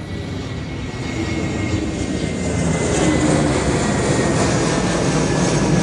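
Airplane flying low overhead, its engine noise growing steadily louder, with a thin high whine that slowly falls in pitch.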